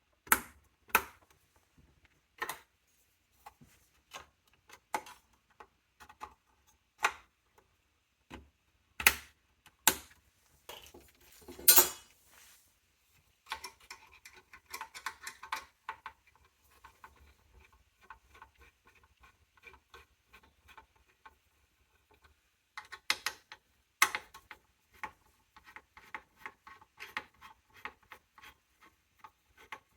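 Hands working on a small form factor desktop PC's case and parts: scattered sharp clicks and knocks of metal and plastic, a brief scrape near the middle, and runs of quick rattling clicks.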